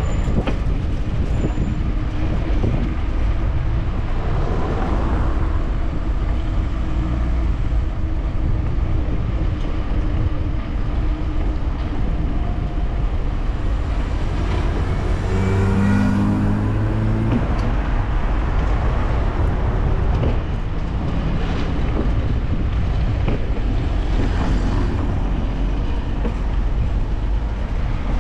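Wind rushing over the microphone with tyre and road noise from a moving bicycle, a steady low rumble. About halfway through, a short pitched tone steps upward over the rumble.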